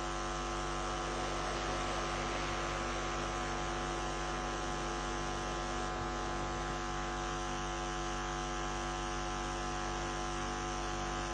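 Steady electrical mains hum and buzz: a set of unchanging tones that holds at one level.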